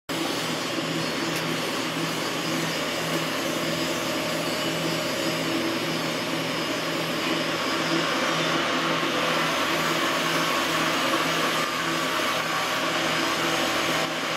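Steady fan-like mechanical whir with a low hum that pulses evenly throughout.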